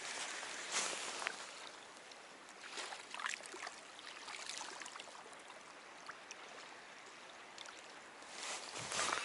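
Wind-driven river water lapping and splashing at the shore, with wind on the microphone; it swells louder briefly about a second in and again near the end.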